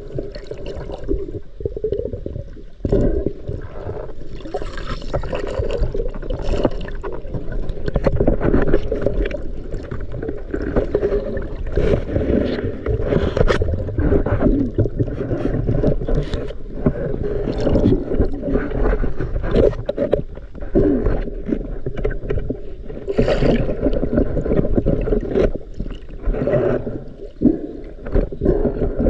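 Muffled water sloshing and gurgling, with many short clicks scattered through it, the water noise ebbing and swelling throughout.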